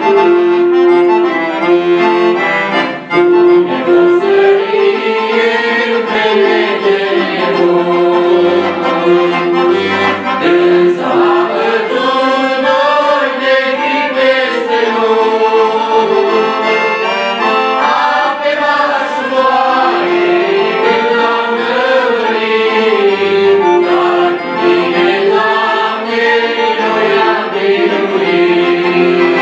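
Piano accordion and saxophone playing a hymn's instrumental introduction: a flowing melody in phrases of a few seconds over sustained accordion chords.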